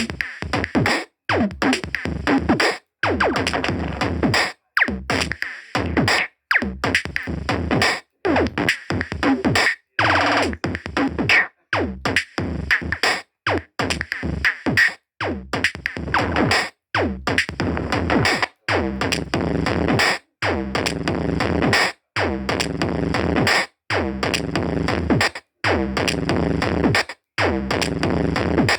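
Electronic music with a drum-machine beat and synthesizer, chopped into regular pulses with short silent gaps.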